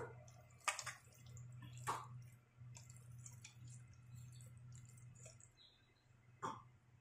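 Faint wet squishing of hands kneading raw chicken pieces coated in lemon juice in a metal bowl, with a few soft wet smacks, one about a second in, one near two seconds and one near the end.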